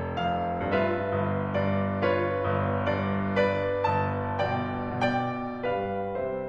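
Background piano music: a slow, gentle melody of single notes struck about every half second over held low notes.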